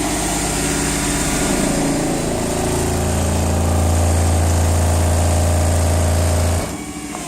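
A vehicle engine idles, then about two and a half seconds in a steady, loud low bass tone from four Skar ZVX 18-inch subwoofers in a transmission-line enclosure comes in. The tone is held for about four seconds and cuts off suddenly.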